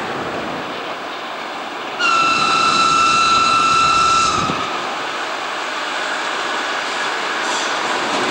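EP1M electric locomotive approaching with a passenger train, giving a steady rush of running noise. About two seconds in, one high-pitched whistle blast sounds and holds for about two and a half seconds.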